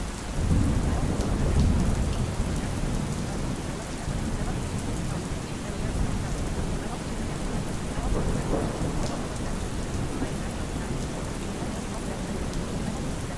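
Steady rain with rolling thunder. A deep rumble of thunder swells in at the start and is loudest in the first two seconds, then keeps rolling more softly under the rain, swelling again briefly about eight seconds in.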